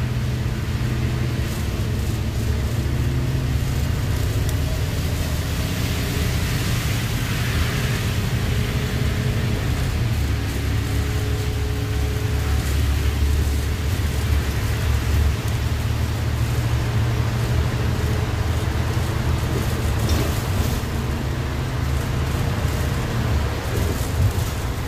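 City bus running at speed, heard from inside its cabin: a steady low engine and road rumble with faint engine tones that drift a little in pitch, and a brief swell of hiss about six seconds in.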